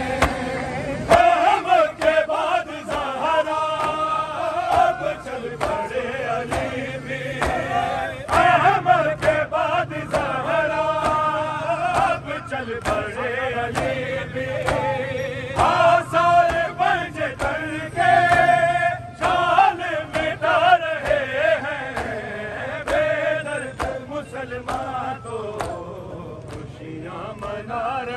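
Men chanting an Urdu noha (Shia mourning lament), a lead voice through a microphone with the group singing along, crossed by sharp hand strikes of chest-beating (matam).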